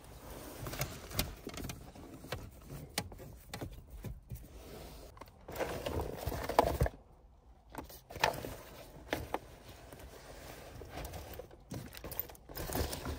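Rustling, soft knocks and clicks of a backpack and loose items being handled and packed in a car's cabin, stopping and starting irregularly, with a quieter pause about halfway through.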